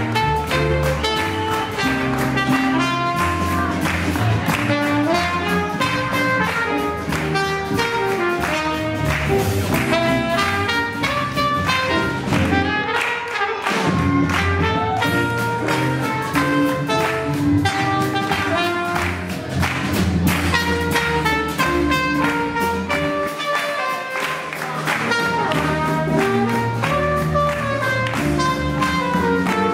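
Live small swing jazz band playing with a trumpet lead over a steady beat. The beat drops out briefly about thirteen seconds in.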